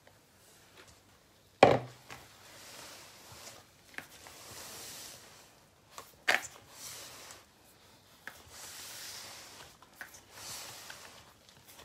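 Hands mixing and kneading wet bread dough in a plastic basin, just after the liquid has gone into the flour: soft rubbing and squishing in stretches. Two sharp knocks cut through it, the loudest about two seconds in and another about six seconds in, with a few lighter clicks.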